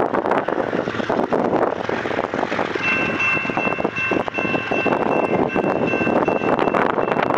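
Wind buffeting the microphone over the distant sound of an approaching train. About three seconds in, a faint steady high tone of several pitches starts and holds.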